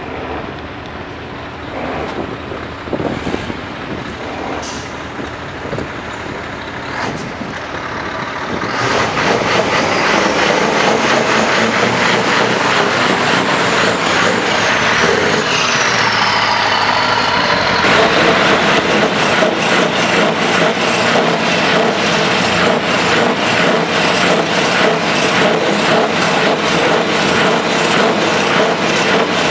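Scania R500's 16-litre V8 diesel running through a loud exhaust: moderately loud for the first nine seconds or so, then much louder and steady, with a fast, even beat of exhaust pulses.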